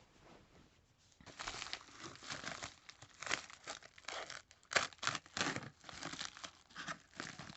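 Shipping package being torn open by hand, with irregular crinkling and tearing of the packaging starting about a second in.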